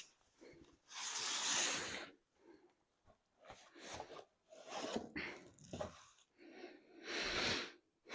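Rustling and sliding of packaging as boxed kits are handled, in a few short bursts with quiet gaps between.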